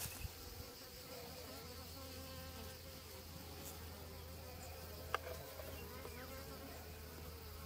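Honeybees buzzing, a faint steady hum from the cluster on a mini-nucleus frame, with a single click about five seconds in.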